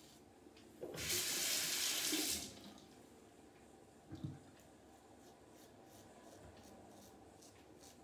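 Bathroom sink tap running for about a second and a half, then a short knock, then faint scraping strokes of a Rockwell 6S safety razor over lathered stubble.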